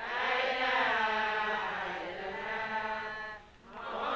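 Islamic dhikr chanted in long drawn-out sung phrases, the pitch rising and falling through each phrase. It breaks off briefly near the end before the next phrase begins.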